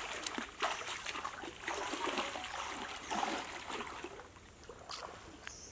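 Water trickling and splashing in irregular small splashes, dying down toward the end.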